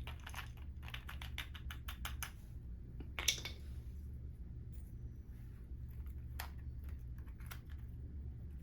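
Small carburetor parts being handled on a workbench: a run of light clicks and taps, with one louder click a little over three seconds in, over a steady low hum.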